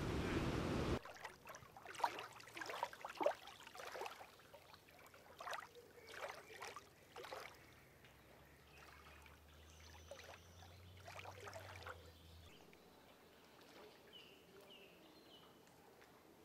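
Floodwater rushing loudly for about a second, cut off abruptly. Then quiet floodwater lapping and splashing in short irregular bursts, fading out after about eight seconds.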